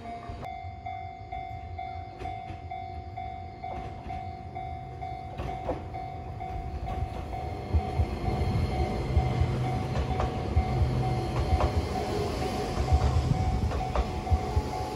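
Level-crossing warning bell ringing in a steady repeating ding while an Enoshima Electric Railway (Enoden) train passes close by. From about halfway through, the train's wheel rumble and rail-joint clicks grow louder.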